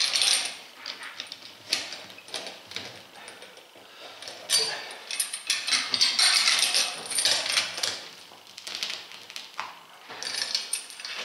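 Irregular metal clinking and scraping of steel pliers and a chain as a strip of rubber is gripped and pulled off an Omsk OI-25 truck tyre, louder about four to seven seconds in.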